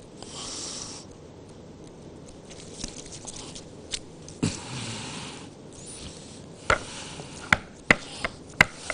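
A plastic kleicha mould knocked against the worktop to tap out the pressed, patterned cookie: a run of sharp knocks, about two a second, in the last couple of seconds. Before that there is only soft handling noise.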